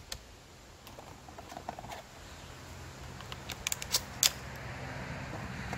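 Shotgun shells being loaded into a semi-automatic shotgun's tube magazine: a few light, scattered clicks, the sharpest about four seconds in. A low steady hum comes up about two seconds in.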